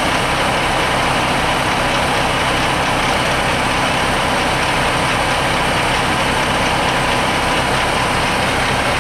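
Concrete mixer truck's engine running steadily.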